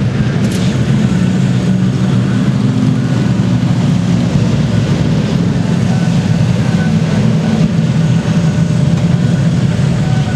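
Race car engines running loud and steady on track at speed.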